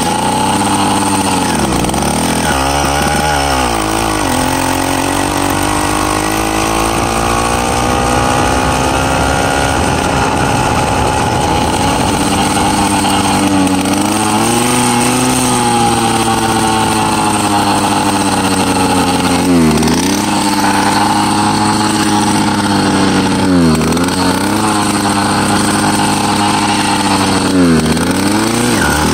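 Small two-stroke engine of a motorized bicycle running under way. Its pitch dips twice a few seconds in, climbs slowly for several seconds after that, then drops sharply and recovers three times near the end as the throttle is eased off and opened again.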